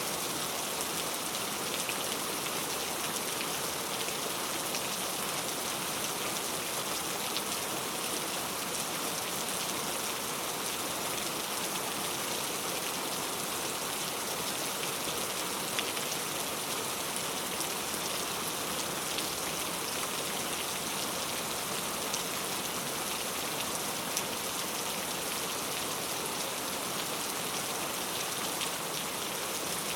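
Steady rainfall, an even hiss of rain on a surface with scattered individual drop ticks.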